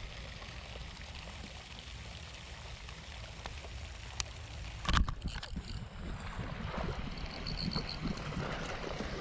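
Outdoor rumble of wind on the microphone, with a sharp click about four seconds in and a louder knock about a second later.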